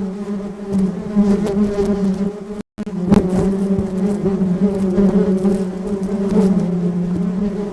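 Honeybees buzzing in a steady, wavering drone with a low hum and overtones above it. It cuts out for an instant about a third of the way through, then carries on.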